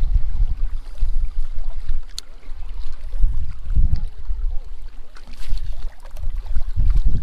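Wind buffeting the microphone in gusts, with small waves lapping against the rocky shore.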